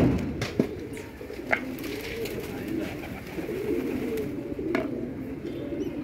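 Domestic pigeons cooing, low wavering coos repeating throughout, with a sharp knock right at the start and a few short clicks.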